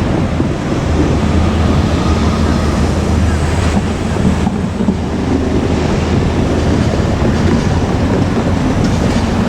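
KiHa 47 diesel railcar running, a steady low engine drone over a broad rushing noise.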